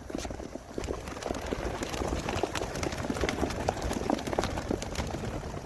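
A flock of homing pigeons bursting out of their crate and taking off: a dense, continuous flutter of wingbeats and wing claps.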